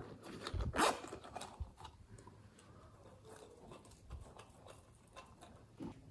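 Zipper on a small pineapple-shaped zip pouch pulled open in one quick rasp about a second in, followed by soft clicks and rustles as the pouch is handled.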